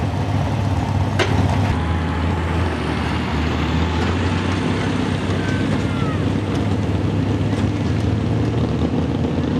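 Small-block V8 engine of a modified pulling tractor idling steadily, with one short sharp knock about a second in.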